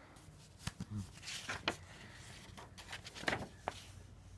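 Paper rustling in a few short crinkles, with a couple of light clicks, as a page of a hand-held paper booklet is turned.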